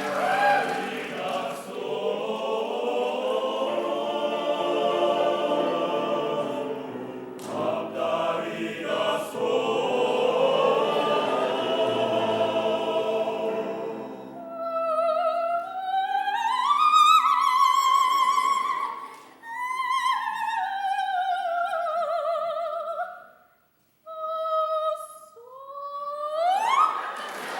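Choir singing sustained chords. About halfway through, the choir drops out and a single high voice sings alone in long swooping glides up and down. There is a short break, then a steep upward slide near the end.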